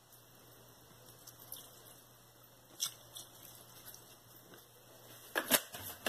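Faint sound of homemade liquid soap being poured from a plastic bottle onto clothes in a top-load washer drum, with a few soft clicks and two sharper clicks near the end.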